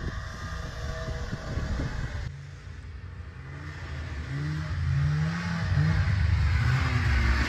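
Vehicle engine running and revving, its pitch rising and falling and growing louder over the second half.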